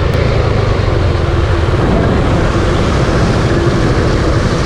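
Suzuki Gixxer 155's single-cylinder four-stroke engine running steadily under way on the road.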